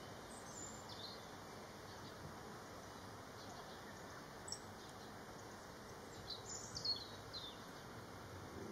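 Short, high bird chirps that slide downward in pitch: one about half a second in, one at about four and a half seconds, and a quick run of several near the end. Under them is a steady faint outdoor hiss.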